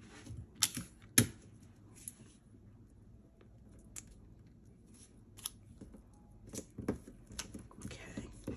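Clear tape pulled from a desk tape dispenser and snapped off its cutter, the sharpest click about a second in, then paper pattern pieces shuffled and taped together with scattered small clicks and rustles.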